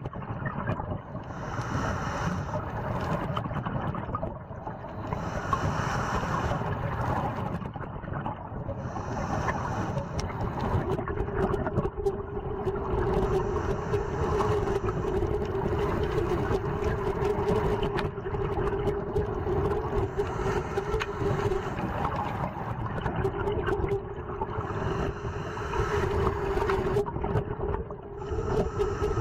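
Underwater sound of a scuba dive: a diver breathing through a regulator, the hiss and bubbles swelling about every four seconds over a steady low rumble. A steady hum joins about ten seconds in.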